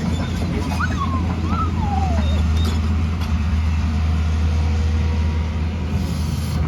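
Diesel engine of heavy earthmoving equipment running steadily with a low, even drone, with a few short squeals sliding up and down about a second in.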